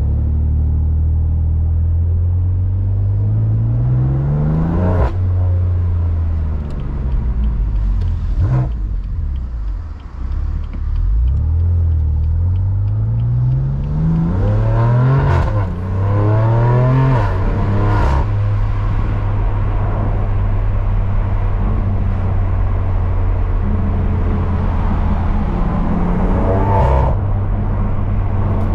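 BMW M3 CS's twin-turbo inline-six, breathing through an AWE SwitchPath exhaust, accelerating hard through the gears. The engine note climbs several times, and each climb ends in a sharp crack from the exhaust as the revs drop at the gear change. A stretch of steady running comes before another climb near the end.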